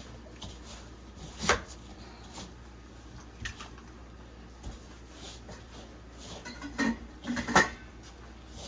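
Kitchen clatter: a handful of separate knocks and clinks of dishes or utensils over a low background, the loudest near the end.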